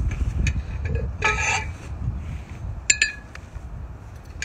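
Metal clinks from the weighted training sled and its weight plates: a short rattle about a second in, then a sharp ringing clink about three seconds in, over a steady low rumble.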